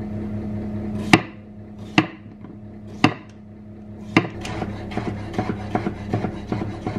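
Kitchen knife cutting cucumber on a chopping board: four separate cuts about a second apart, then quick chopping at several strokes a second, over a steady low hum.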